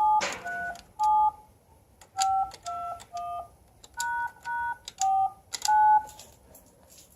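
Touch-tone (DTMF) beeps from a payphone prop's keypad as a ten-digit number is dialled: ten short two-tone beeps in groups of three, three and four, each with a light key click.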